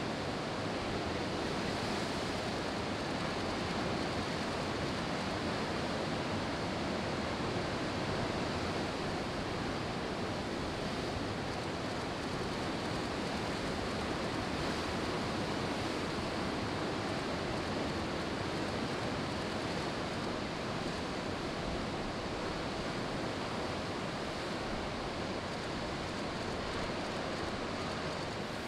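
Steady noise of breaking ocean surf, with wind on the microphone mixed in.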